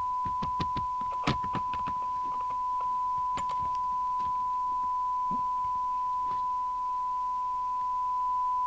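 A steady 1 kHz test tone from a CB radio's receiver, playing through a test-set speaker. A run of clicks comes over it in the first few seconds.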